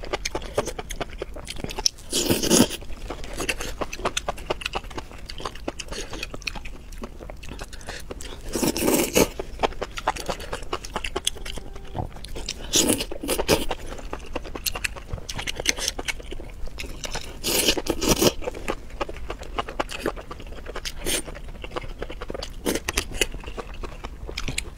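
Close-miked eating: a person biting and chewing sauce-coated enoki mushroom bundles, a steady run of small clicky mouth sounds with four louder bites spread through.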